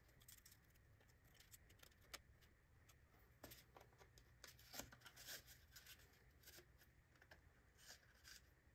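Near silence, with faint scattered clicks and light scrapes of thin carbon rods being slid into 3D-printed lightweight foaming-PLA tail fins for a test fit.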